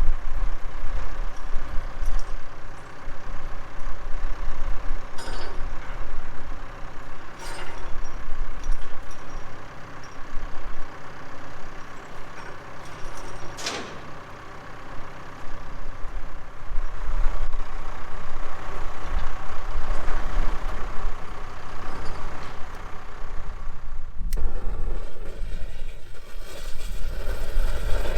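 A heavy vehicle engine running with a strong, steady low rumble, with a few sharp knocks; the sound changes abruptly about 24 seconds in.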